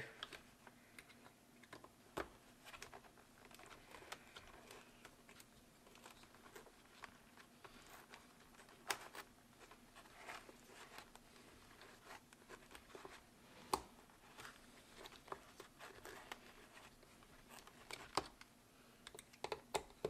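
Faint scattered clicks and scrapes of an Allen key turning the small screws of a Sena 50S helmet clamp, tightened a little at a time, with a few sharper ticks spread through. A faint steady hum lies underneath.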